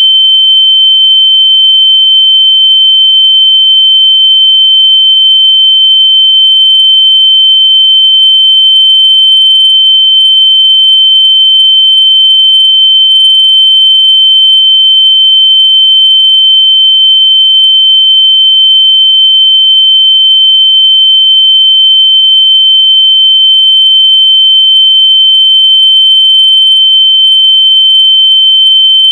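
Very loud, steady, high-pitched electronic tone held without a break, played to help locate lost AirPods by ear.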